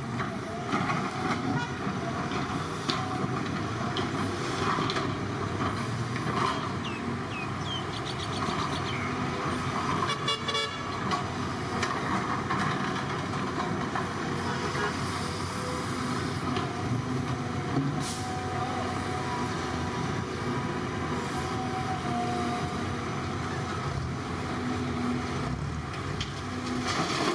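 Diesel construction machinery, such as an excavator and dump trucks, running steadily.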